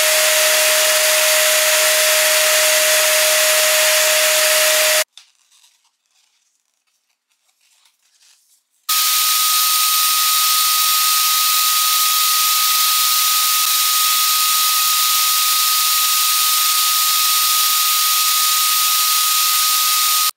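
Electric balloon pump blowing air through its nozzle into latex balloons: a loud, steady rush of air with a steady motor whine. It cuts off abruptly about five seconds in, leaving near silence for about four seconds, then starts again with a higher-pitched whine.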